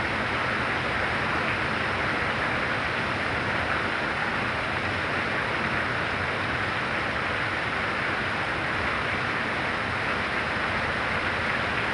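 Very heavy rain falling, a steady, even hiss with no separate drops, thunder or other events standing out.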